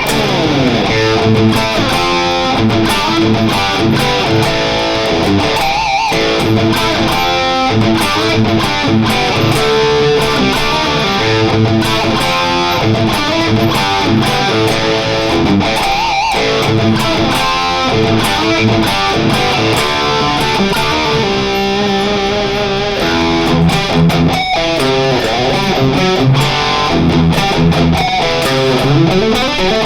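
Electric guitar through a Friedman BE-Mini solid-state amp playing high-gain '80s metal riffs, mostly chugging rhythm. It opens with a slide down in pitch and there is a slide up near the end.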